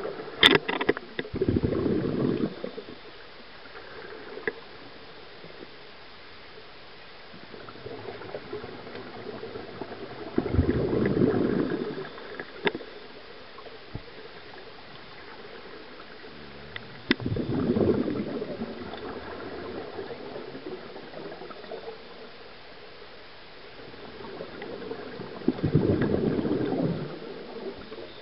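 Scuba regulator exhaust heard underwater: four long bursts of bubbling exhalation about eight seconds apart, with a low steady hiss and a few faint ticks between breaths.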